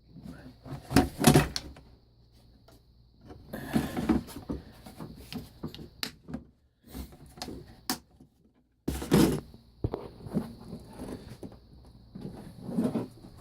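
Metal tool box drawers being slid open and shut and tools handled, giving a series of knocks, clanks and scraping rustles; the loudest knocks come about a second in and about nine seconds in.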